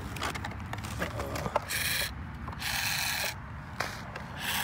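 Small electric hobby-grade RC truck's motor and gears whining in a few short high-pitched bursts of throttle as it drives over snow and grass, with small clicks and knocks in between.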